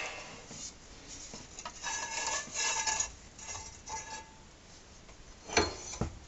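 Steel hand tools clinking as a large socket and extension are handled on a motorcycle's rear pulley nut: a run of light metallic clinks with a short ringing tone, then a sharper knock about five and a half seconds in.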